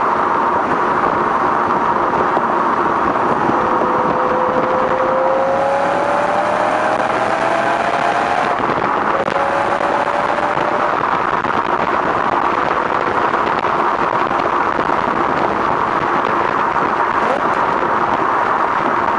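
BMW M3's S65 V8 exhaust at a steady cruise, heard from right at the rear exhaust tips and mixed with heavy wind and road noise. A faint tone climbs slowly in pitch from about four to eight seconds in.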